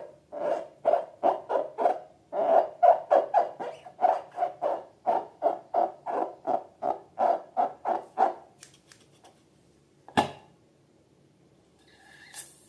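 Slime being squeezed and worked by hand, giving a regular run of short, pitched squelching sounds about two or three a second. These stop about eight seconds in, and a single sharp click follows about two seconds later.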